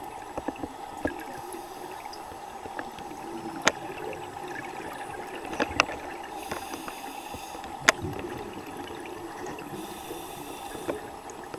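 Muffled underwater ambience of a scuba dive: a steady hum with a diver's regulator breathing, a hiss on two inhalations, and scattered sharp clicks, the loudest about 4 and 8 seconds in.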